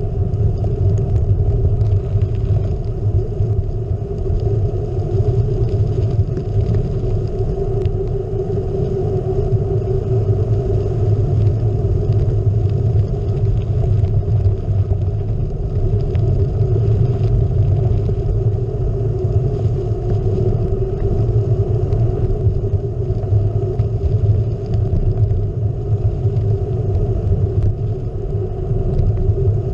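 Steady rumble of gravel bike tyres rolling on a dirt-and-gravel road, with the ride's vibration carried through the mounted GoPro.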